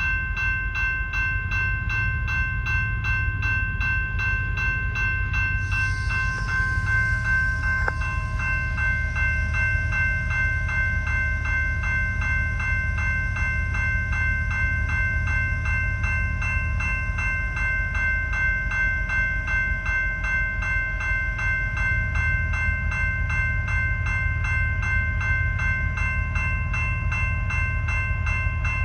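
A railroad bell ringing steadily and rapidly over the low rumble of the ex-BNSF EMD SD70MAC diesel locomotives. A short hiss of air comes about six seconds in.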